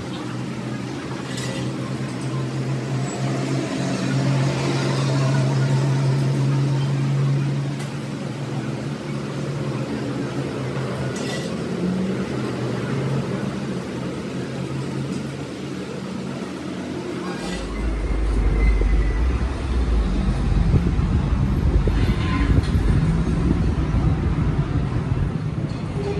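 A steady engine hum with even low tones. About seventeen seconds in it changes suddenly to a deeper, louder rumble. A few faint clicks sound over it.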